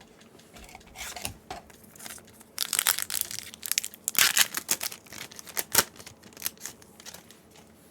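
Foil booster-pack wrapper being torn open and crinkled in the hands, an irregular run of crackling rustles that is loudest in the middle.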